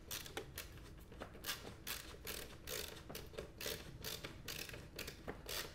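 LTT Stubby ratcheting screwdriver driving a screw into plywood, its ratchet giving faint, repeated clicks in short runs, roughly two or three a second, as the handle is turned back and forth.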